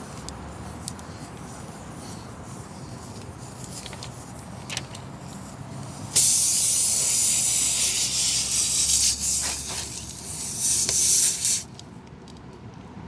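Air hissing out of a tire puncture around the repair tool, starting suddenly about six seconds in and cutting off sharply about five seconds later. A few light clicks and scrapes of the tool come before it.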